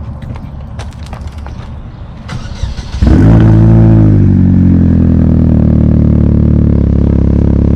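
Chevrolet Cobalt SS turbocharged four-cylinder with an aftermarket ZZP exhaust starting: after some scattered clicks, the engine catches about three seconds in with a loud flare of revs, then settles to a steady idle through the new exhaust.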